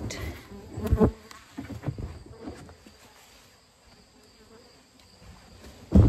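Insects buzzing and chirring steadily in the background, with a few bumps and rustles about a second in.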